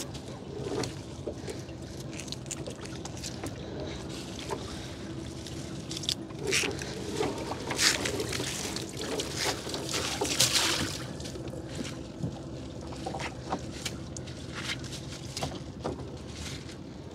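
Water sloshing and dripping as a wet gill net is worked by hand on a small boat, with a few louder splashes in the middle, over a steady low hum.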